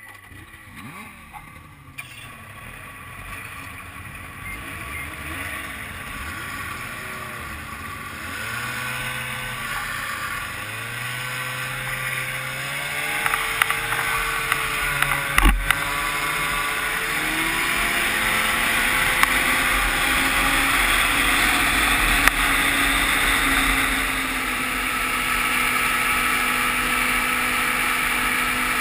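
Two-stroke engine of a 1995 Ski-Doo Grand Touring snowmobile pulling away from a stop: quiet at first, its pitch rising and falling as it gets under way, then running steadily and growing louder at trail speed. A single sharp knock about halfway through.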